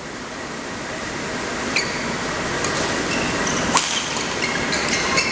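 Badminton rally: rackets striking the shuttlecock, sharply twice, a little under two seconds in and near four seconds, with short squeaks of shoes on the court floor over a crowd hubbub that grows steadily louder.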